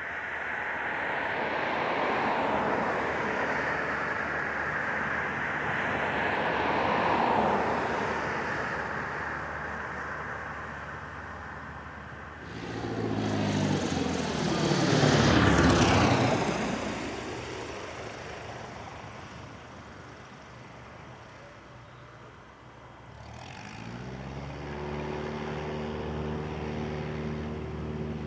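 Airplane passing close by: a rushing engine noise builds and peaks about 15 seconds in, its pitch sweeping down as it goes past, then fades. About 24 seconds in, a steady engine hum starts.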